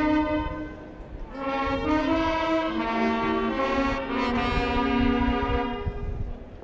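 Marching band brass playing the alma mater slowly in long held chords, with a short breath pause about a second in and another at the end.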